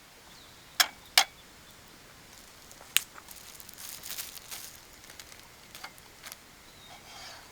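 A few sharp clicks: two close together about a second in and another about three seconds in. Between them and after come a run of lighter ticks, a few more clicks and a soft rustle near the end.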